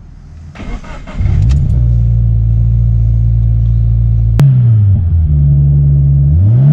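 Cold start of a turbocharged Scion FR-S's 2.0-litre flat-four, heard from inside the cabin. The starter cranks briefly and the engine catches about a second in, then holds a steady, fast cold idle. A sharp click comes about four seconds in, the idle pitch shifts, and the engine revs up near the end.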